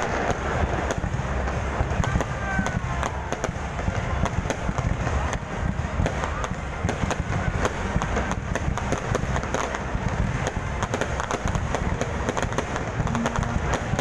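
Aerial fireworks bursting overhead in a rapid, unbroken barrage of bangs and crackles.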